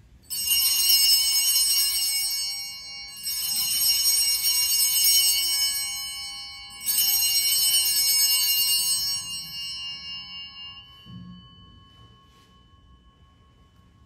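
Altar bells (Sanctus bells) rung three times, about three seconds apart, marking the elevation of the chalice at the consecration. Each ring is a bright jangle of several high tones that fades away, the last dying out with one lower tone lingering.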